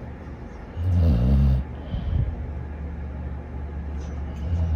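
Dog snoring: a loud, low snore lasting under a second starts about a second in, a softer steady rumble follows, and the next snore begins near the end.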